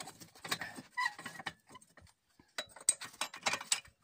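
Clinks and rattles of steel stand parts being fitted together by hand under a walk-behind tractor, in scattered bursts that are busiest in the second half.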